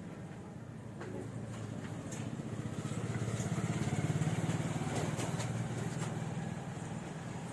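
A motor vehicle engine running, a steady pulsing low drone that grows louder to about four seconds in and then eases a little, with a few faint clicks over it.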